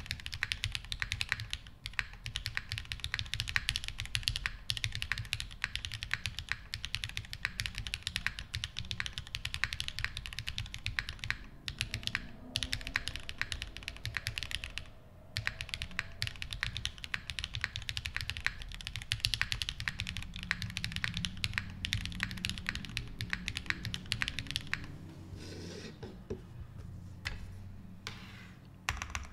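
Typing on a Midway60 custom mechanical keyboard with an aluminum half plate, Techno Violet switches lubed with 205g0, Durock stabilizers and GMK MoDo 2 keycaps. The keystrokes are rapid and continuous, with a brief pause about fifteen seconds in.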